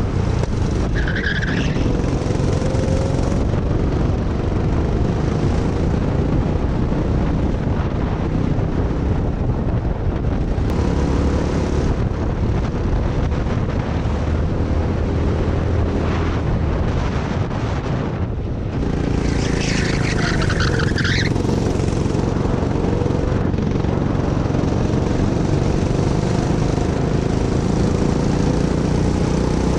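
Go-kart engine heard from on board, running hard with its pitch rising and falling through the laps. Tyres squeal briefly about a second in and again for about two seconds around two-thirds of the way through, with the engine easing off just before the second squeal.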